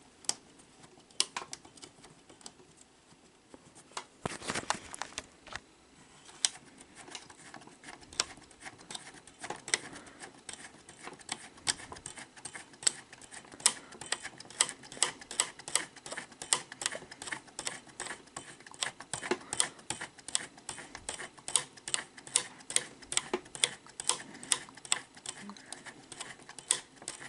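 Small plastic clicks from the loading mechanism of a Sony SLV-R5UC S-VHS VCR as its cam gear is turned slowly by hand to unload the tape guides. A short clatter about four seconds in, then a steady run of clicks about three a second.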